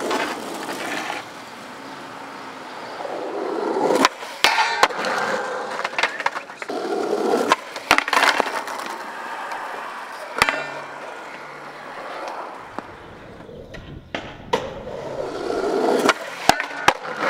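Skateboard wheels rolling on concrete paving, broken again and again by sharp clacks and slaps of the board: pops, hits on a metal stair handrail and landings.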